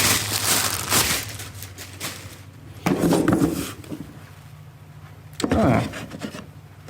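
Plastic packaging crinkling and rustling as a new CV axle is unwrapped and handled. The crinkling is densest in the first second, then comes in softer scattered crackles with a couple of louder handling bursts.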